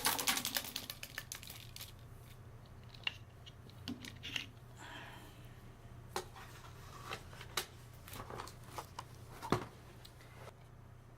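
Clicks, taps and short rustles of hands working a reel-to-reel tape deck and its tape reels, starting with a quick run of clicks and then scattered single clicks, over a faint steady hum.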